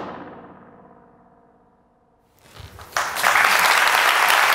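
A recorded balloon burst under a canal bridge, its echo dying away over about two seconds with a springy, warbling ring. Audience applause then starts about two and a half seconds in and is loud and steady from three seconds on.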